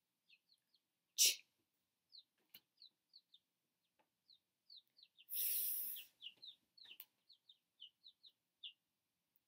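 A small bird chirping over and over in short, high chirps. A woman's voice breaks in with a short 'ch' sound about a second in and a longer 'f' sound about five seconds in, and these are the loudest sounds.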